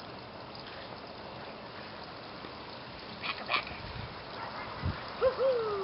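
Small Yorkshire terrier yipping a few times in the second half: two short sharp yips, then near the end two quick high calls that rise and fall in pitch.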